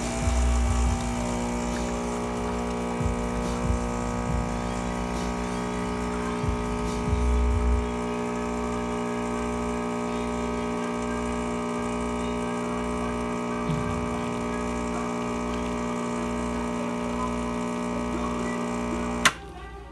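Rancilio Silvia espresso machine's vibratory pump humming steadily as it pulls an espresso shot, then cutting off abruptly with a click near the end.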